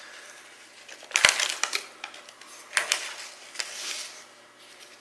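Masking tape being handled and pressed onto the end of an oar: short crackling, ripping bursts, the loudest about a second in with a light knock, then a few smaller crackles.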